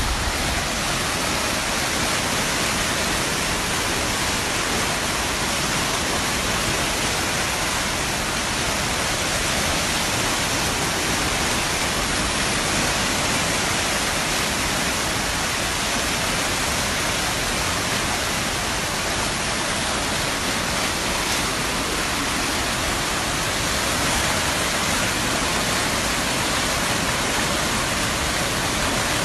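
Fast, muddy floodwater rushing and churning past a road edge, a loud, steady, unbroken rush of water.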